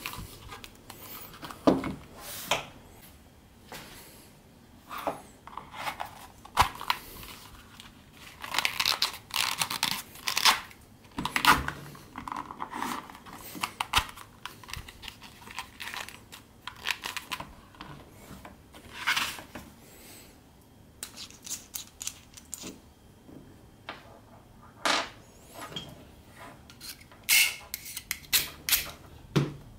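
Irregular rustling, scraping and sharp clicks of hands and tools working leather, with bursts like cutting or tearing.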